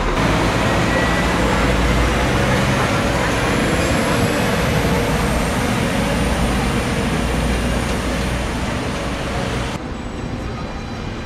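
A passenger train running past close by: a steady rumble with rail noise and a faint high whine. The sound drops abruptly near the end to a quieter train approaching.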